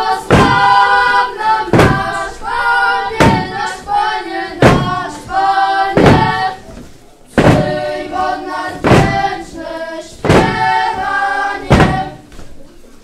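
A group of children singing a Polish carol in unison. A heavy thud on the wooden stage floor comes about every second and a half, keeping time.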